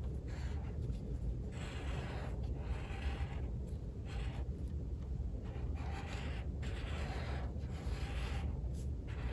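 Washable felt-tip marker drawn across watercolour paper in short repeated strokes, a soft scratchy scribbling about once a second, over a low steady hum.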